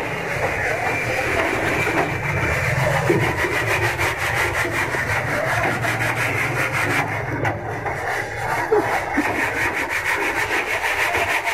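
Hand sanding on the bare body panels of a Suzuki Bolan van: a steady, continuous rubbing of abrasive against the bodywork.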